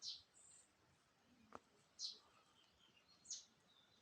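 Faint bird chirps: three short high calls, each falling in pitch, with a single faint click about halfway through.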